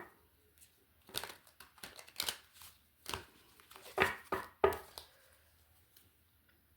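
Runes being handled and drawn for a reading: a run of short rustles and clicks between about one and five seconds in, the sharpest near the end of that run.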